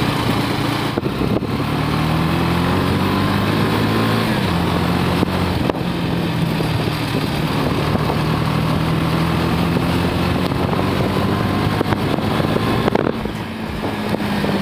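KTM 250 Duke's single-cylinder engine running while the bike is ridden, its pitch climbing and dropping with throttle and gear changes: it drops about four seconds in and again briefly near the end. A steady rushing noise of wind and road lies underneath.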